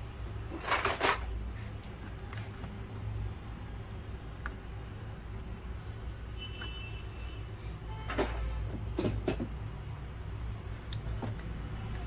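Handling noise: a few plastic clicks and knocks as the opened LCD meter housing and its circuit board are moved by hand, about a second in and again around eight to nine seconds, over a steady low hum.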